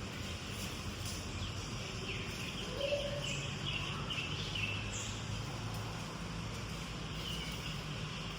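Ambient background: a steady low hum with scattered faint high chirps, like small birds, during the middle few seconds.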